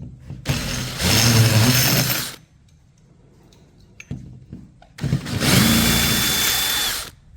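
Power drill running in two bursts of about two seconds each, with small handling clicks between them.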